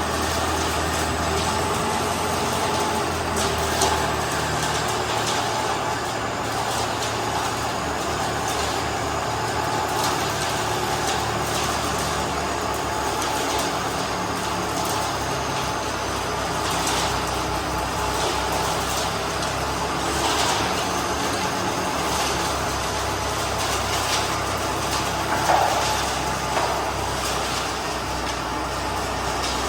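Self-loading concrete mixer's engine running steadily, with a few short clanks scattered through.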